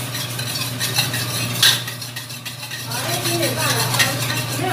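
A utensil stirring and clinking in a stainless steel bowl: a quick run of small metal clicks, then one louder clink past the middle, over a steady low hum.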